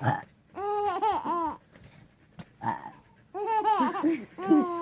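A boy burps, and a baby answers with bursts of high-pitched laughter. A second short burp about two and a half seconds in sets off another, longer run of the baby's laughing.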